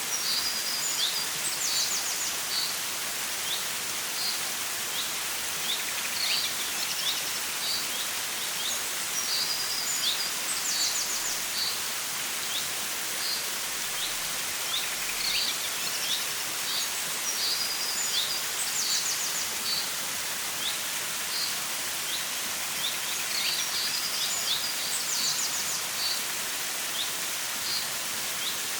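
Steady rushing of a flowing stream with birds chirping over it. The same short bird phrase, a quick trill among high chirps, returns about every eight seconds.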